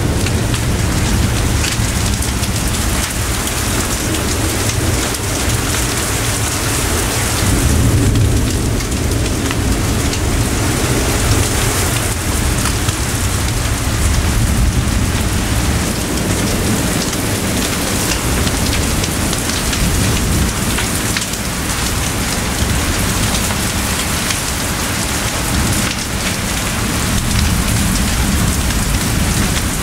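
Heavy rain falling steadily in a thunderstorm, with a low rumble of thunder underneath that swells about 8 seconds in and eases later on.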